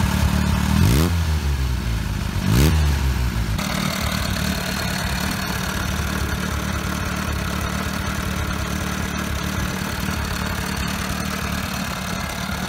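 1934 Nimbus Type C motorcycle's 746 cc air-cooled inline-four engine, revved briefly twice in the first few seconds, then idling steadily.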